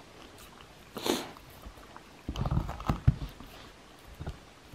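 Shiba Inu gnawing and licking a small wooden kamaboko board: short clusters of teeth clicking and knocking on the wood, with a brief huff of breath about a second in.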